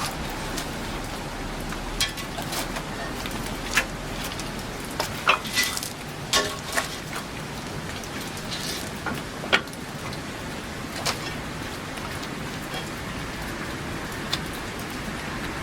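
Irregular knocks and clanks of a heavy tractor drawbar being lifted and hooked onto the back of a Massey Harris Pony, over a steady background hiss. The loudest knocks come in a cluster about a third of the way in.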